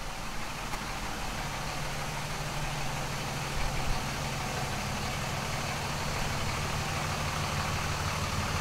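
2005 Ram 2500 pickup's engine running at low speed as the truck creeps forward, growing a little louder over the first few seconds as it comes closer, then holding steady.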